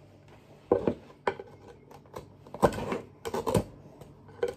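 Slotted spatula knocking and scraping against cookware: a run of clatters and short scrapes, the loudest about halfway through.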